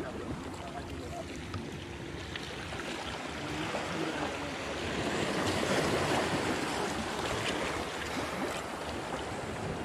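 Small sea waves washing and breaking over jetty rocks, a steady rush that swells about halfway through and then eases.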